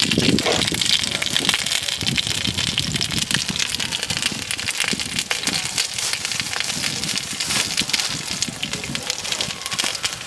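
Small round cakes frying in oil on a wide flat pan, a steady dense sizzling and crackling. Voices sound faintly behind it.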